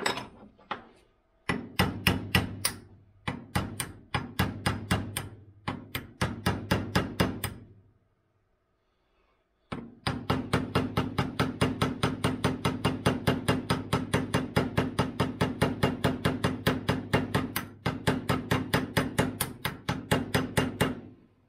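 Hammer tapping a thick X-Acto scraper blade, used as a makeshift wedge, into the slit in a small hammer's wooden handle to lock the head on, with sharp metal-on-metal taps that ring slightly. The taps come in short clusters at first. They stop for about two seconds, then resume as a fast, even run of about five taps a second.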